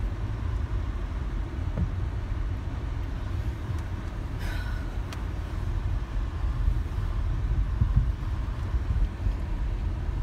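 Car cabin noise while driving over a rough, potholed, waterlogged dirt road: a steady low rumble of tyres and engine, with a few knocks from bumps, the loudest about eight seconds in.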